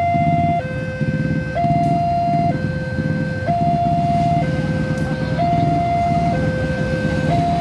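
Railway level-crossing warning alarm sounding a steady two-tone signal, high and low tones alternating about once a second, warning of an approaching train. A low engine rumble runs underneath.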